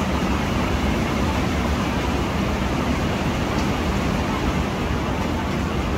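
Xiaomi handheld garment steamer running as it steams a fabric backdrop, giving a steady hiss of steam over a low drone.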